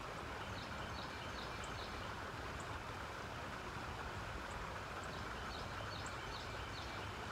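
Steady rush of flowing river water, with a small bird chirping in short repeated calls over it.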